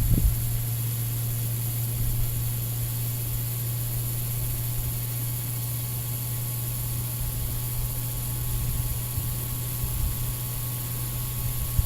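Walbro electric fuel pump wired straight to a battery, running with a steady, even hum as it pumps gasoline out of a full fuel tank.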